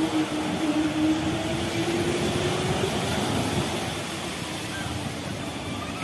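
Steady wind and surf noise on the shore, with a passing vehicle's low drone that sinks slightly in pitch and fades out about halfway through.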